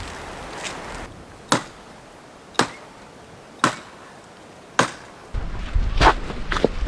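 Wood being chopped: four sharp single strikes, about one a second. Near the end louder rustling and wind noise on the microphone take over.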